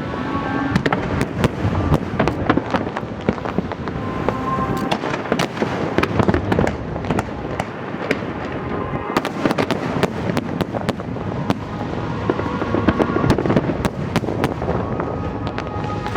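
Aerial fireworks bursting and crackling in a dense, continuous barrage of many sharp bangs, with music playing underneath.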